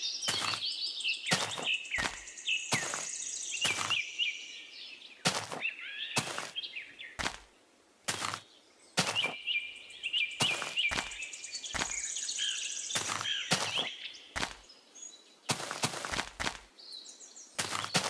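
A series of short dull taps, about twenty at irregular intervals, as a small metal pin-like tool is pressed into damp sand. Birds chirp in the background for two stretches.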